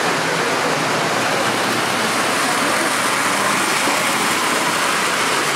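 Model freight train running on its track, a steady rolling rumble of wheels on rail.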